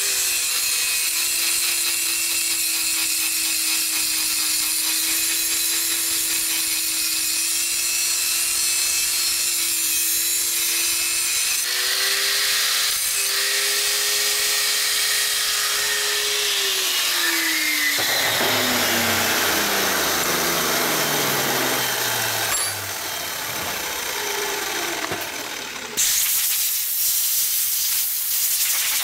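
Electric angle grinder grinding the tip of a Harley Panhead rocker arm to correct its geometry for a high-lift cam, its motor whining at a steady pitch with a grinding hiss. About two-thirds of the way through it is switched off and winds down in a long falling whine, and near the end a loud hiss starts suddenly.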